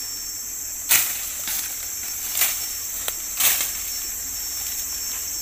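Machete chopping into bamboo: about four sharp strikes over roughly three seconds, over a steady high drone of forest insects.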